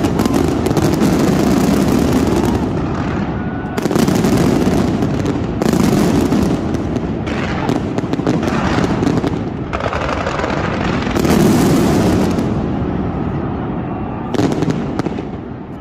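Fireworks display going off in a dense continuous barrage of crackling and bangs, swelling in several waves, then tailing off near the end.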